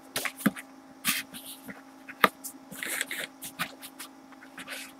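Sheets of scrapbook paper rustling and sliding as they are handled, in short bursts, with one sharp tap a little past two seconds in. A faint steady electrical hum runs underneath.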